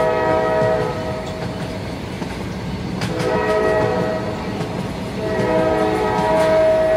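Fan-made monster-train sound: a train horn with several tones sounding in long blasts. It drops out about a second in, returns around three seconds, and holds again from about five seconds on, over a steady rumbling train noise.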